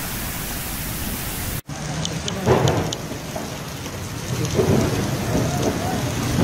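A steady rushing hiss cuts off abruptly. Then comes heavy rain, with a burst of thunder about two and a half seconds in.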